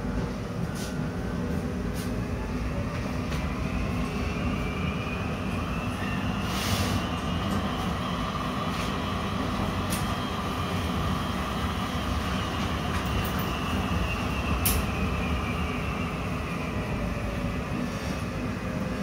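Tram running on its rails, with a steady low rumble. The motor whine rises in pitch as it picks up speed, holds, then falls away as it slows. A few sharp clicks come through along the way.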